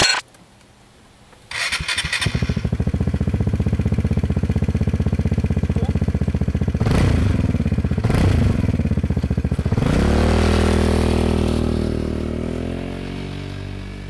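A Vespa GTS's single-cylinder four-stroke engine, breathing through a VRX exhaust with its dB killer fitted. The electric starter turns briefly and the engine catches a little after two seconds, then idles with an even pulse. It is blipped twice around seven and eight seconds, then revs up as the scooter pulls away and fades as it rides off.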